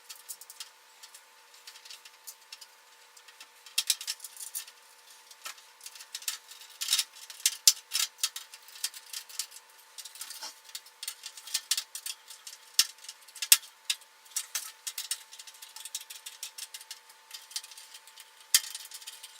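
Irregular small clicks, ticks and rattles of screws, a screwdriver and plastic fan frames against a metal PC case as 120 mm case fans are screwed into the top panel.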